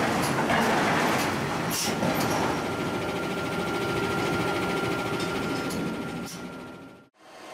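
Forge-shop noise: machinery running steadily, with a few sharp metal clinks in the first two seconds and a faint steady high tone from about two seconds in. The sound fades and cuts off just before the end.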